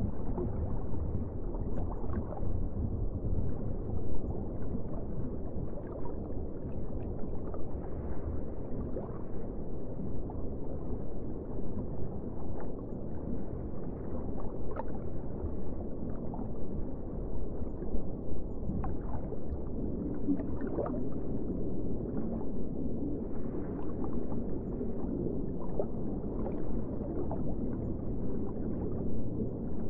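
Underwater ambience: a steady, muffled rumble of moving water with scattered small gurgles and bubble pops.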